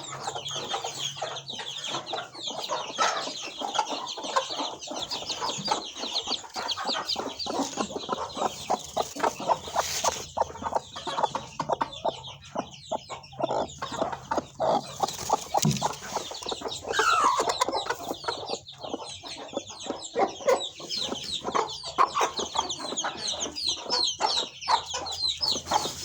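A flock of chickens clucking and calling without pause, with a dense layer of short high-pitched calls over the lower clucks.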